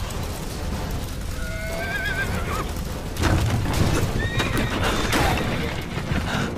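Horses whinnying: two calls with a wavering, shaking pitch, about a second and a half in and again about four seconds in, over a steady low rumble that grows louder about three seconds in.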